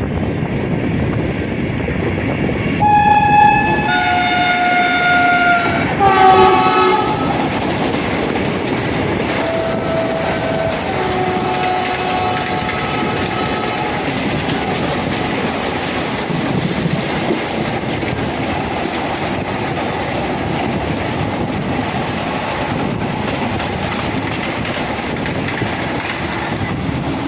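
Vande Bharat Express train sounding its horn in several loud blasts about three seconds in, the second blast lower in pitch than the first, then fainter horn notes a few seconds later. The steady rumble and wheel clatter of the train running past goes on throughout.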